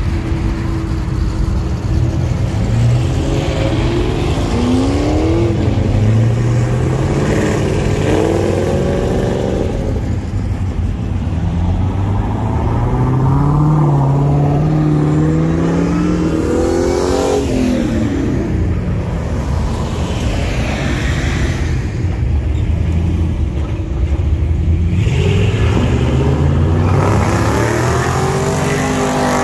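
Several cars pulling out and accelerating away one after another, their engines revving up and dropping back as each one passes.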